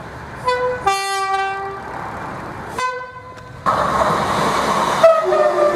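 British train two-tone horns: a short high note, then a longer low note, then another short high note. Near the midpoint it cuts suddenly to the rushing noise of a moving train, and a high-then-low horn pair sounds over it near the end.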